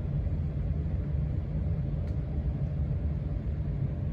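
Casablanca Stealth ceiling fan running, heard as a steady low rumble, with a faint tick about two seconds in.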